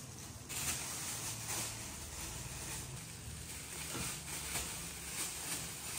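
Clear plastic wrapping rustling and crinkling in irregular bursts as it is torn open and pulled off a soft cushion.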